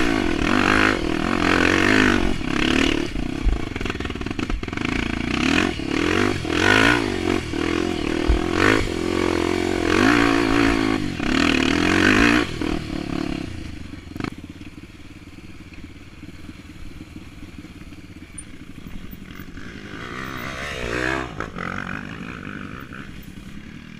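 Honda XR250 Tornado's single-cylinder four-stroke trail-bike engine revving up and down hard over rough ground, with clatter from the bike, then dropping to a low idle about halfway through; one more short rev rises and falls near the end.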